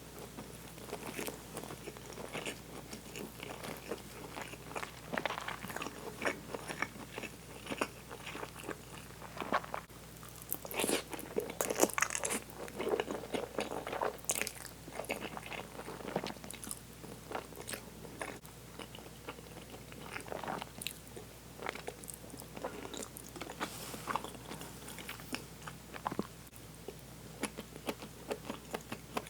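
Close-miked eating: a person biting and chewing food, a steady run of small moist clicks and crunches, busiest and loudest around the middle.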